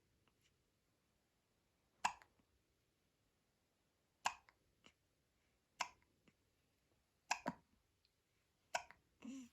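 A two-week-old newborn baby hiccuping: five short, sharp hiccups about one every one and a half seconds, with a brief low voiced sound just before the end.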